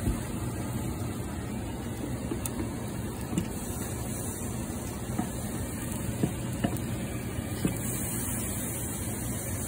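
Steady low background hum with a handful of light clicks and knocks scattered through, from kitchen items handled around a small stainless saucepan on a glass-top stove.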